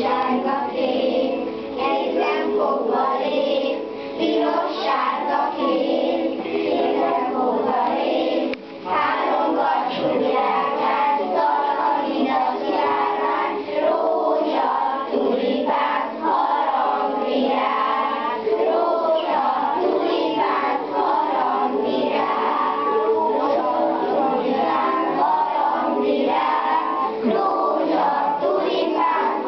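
A group of young schoolchildren singing a song together, without a break throughout.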